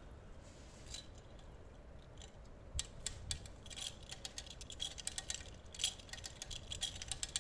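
Hand-operated 8-ton winch ratcheting as its handle is worked back and forth: quick runs of metallic clicks, starting in earnest about three seconds in, as it tensions the rope to pull over a notched tree.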